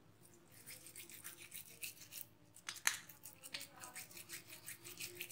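Hands rolling raw minced chicken mixture between oiled palms to shape a finger: faint, irregular sticky rubbing with small clicks.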